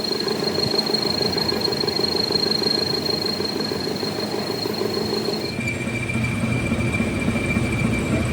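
Metalworking machinery running steadily, with a thin high whine over a dense rumble. About five and a half seconds in, the sound changes abruptly and the whine drops to a lower pitch.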